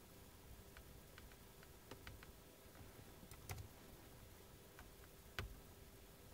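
Near silence with scattered faint clicks; the two loudest come about three and a half and five and a half seconds in.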